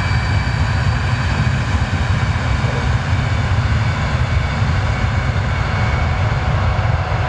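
Jet engines of an easyJet Airbus airliner running at high power as it rolls along the runway: a loud, steady rumble with a thin high whine on top.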